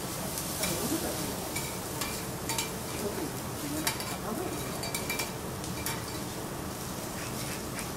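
Food sizzling on a steel teppanyaki griddle, with metal spatulas clicking and scraping against the hot plate over and over as the food is tossed.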